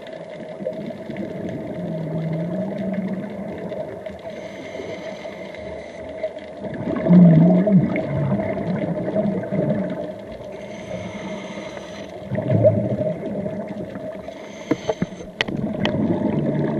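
Scuba regulator breathing heard underwater: three hissing inhalations, each followed by a bubbling, rumbling exhalation, the loudest about seven seconds in. A steady hum runs underneath, with a few sharp clicks near the end.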